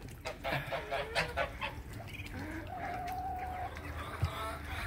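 Domestic chickens clucking and calling, with one drawn-out call of about a second near the middle.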